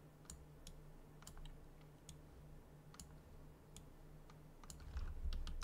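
Computer mouse clicking irregularly, a dozen or so sharp clicks, over a faint steady low hum.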